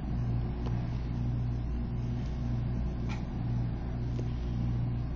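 A steady low mechanical hum, with a few faint light taps of a stylus on a tablet's glass touchscreen.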